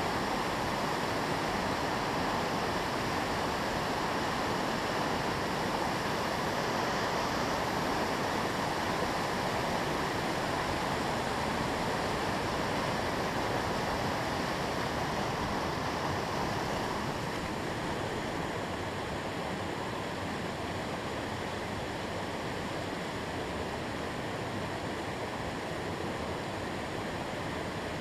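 Whitewater rushing over a river falls, a steady churning of water that becomes a little quieter a bit past halfway through.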